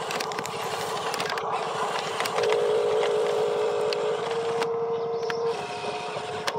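Toy RC dump truck's small electric drive motor and plastic gearbox whining as the truck manoeuvres on dirt, the whine pulsing, then holding steady for a moment after the middle before stopping, with small clicks and scrapes from the wheels on gravel.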